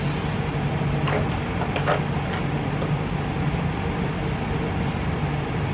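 Steady, fairly loud mechanical hum and whir, like a running fan or air-conditioning unit. A few faint clicks about one and two seconds in come from small makeup items being handled.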